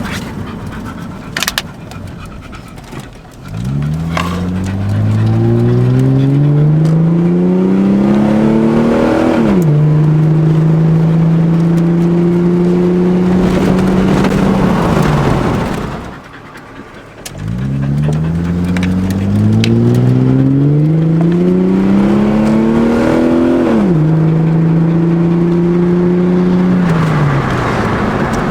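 Holden VS Commodore's 3.8-litre V6 pulling hard twice: each time the engine note climbs steadily for about six seconds, drops at an upshift, holds steady for a few seconds, then dies away as the throttle comes off.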